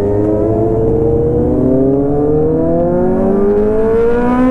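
Motorcycle engine pulling steadily under acceleration, its pitch rising evenly through the gear, over a low wind rumble.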